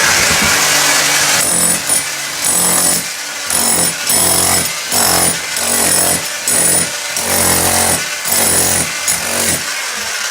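Electric power tool running, steady at first and then in short repeated bursts, about two a second.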